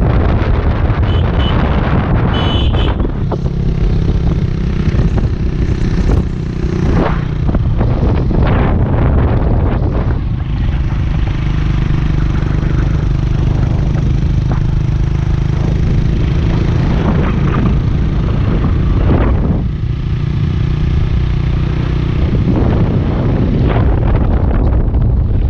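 Motorcycle engine running at a steady cruise under heavy wind noise on the microphone, the engine note dipping briefly a few times.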